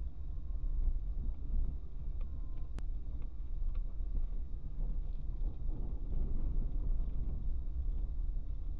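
Steady low rumble of a car driving slowly along a rough unpaved forest road, heard from a dashcam inside the cabin, with one sharp click about three seconds in.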